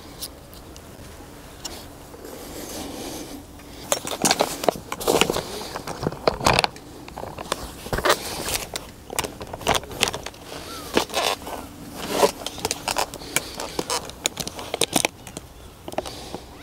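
A quiet start, then from about four seconds in a long run of irregular clicks, knocks and scrapes.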